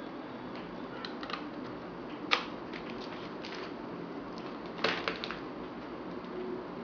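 Plastic clicks and handling noise as a USB charging cable is plugged in, with one sharp click about two seconds in and a quick cluster of clicks near five seconds, over a steady hiss.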